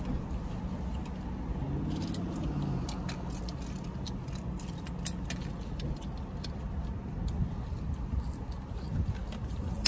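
A bunch of keys jangling and clinking as they are handled, in scattered sharp clicks, thickest in the middle, over a steady low rumble.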